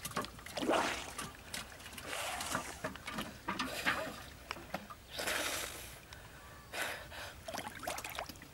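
River water splashing and sloshing around a person wading chest-deep, in irregular bursts with small sharp splashes in between.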